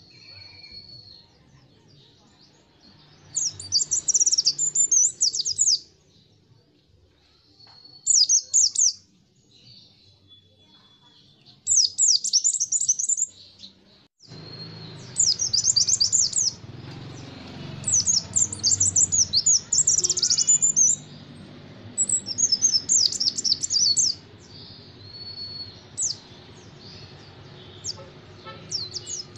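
White-eye (pleci) singing: repeated bursts of rapid, high-pitched chattering notes, each a second or two long, separated by pauses and a few thin single whistles. About halfway through, a low steady background hum comes in under the song.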